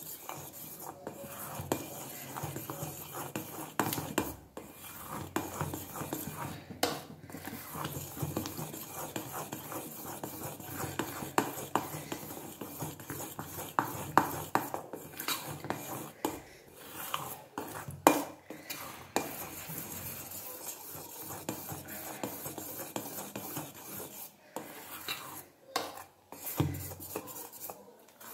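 A hand stirring and beating thick dhokla batter of gram flour and semolina in a stainless steel bowl. It makes a continuous wet stirring noise with irregular clicks and knocks against the bowl.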